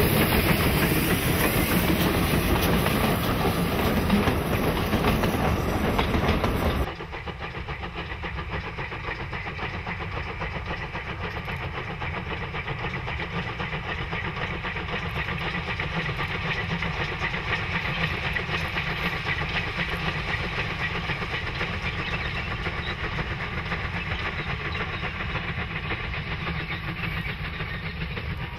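NGG11 narrow-gauge Garratt steam locomotive's train of wagons rolling close past, wheels clattering on the rails. About seven seconds in, the sound drops abruptly to the quieter, steady running of the locomotive working in the distance.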